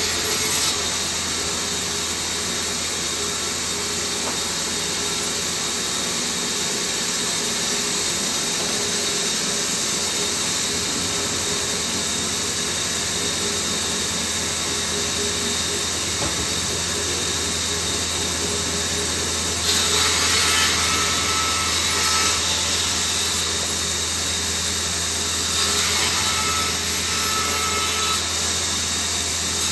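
Band saw running steadily while ripping a small log lengthwise into wooden stakes, the blade cutting through the wood. The sound gets louder for a few seconds twice in the second half.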